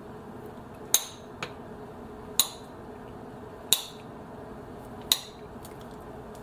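Four sharp, ringing clinks of metal or glass against dishware, spaced about a second and a half apart, over a steady low hum.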